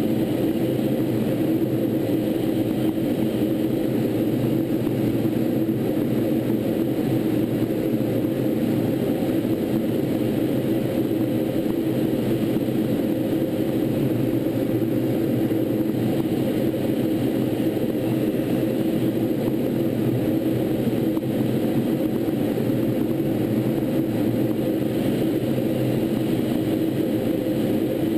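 Steady in-flight drone heard aboard a T-38 Talon jet trainer: engine and rushing-air noise with a low, even hum, unchanging throughout.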